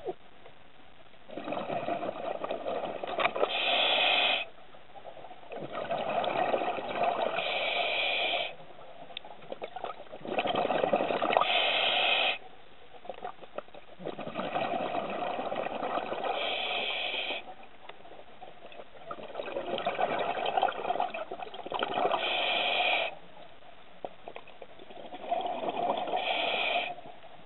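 Scuba regulator breathing heard underwater: six bursts of exhaled bubbles, each lasting two to four seconds, with a quieter pause for each inhalation between them.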